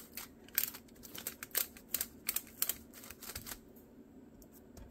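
Aluminium foil lining a baking pan crinkling and crackling as a hand presses sticky dough down into it: a quick, irregular run of sharp crackles that thins out after about three and a half seconds.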